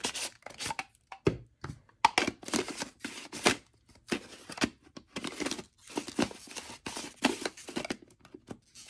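Hard plastic clicking and scraping, in an irregular run of short sharp sounds, as the clear plastic globe of a Carat-bong lightstick is twisted and worked against its base.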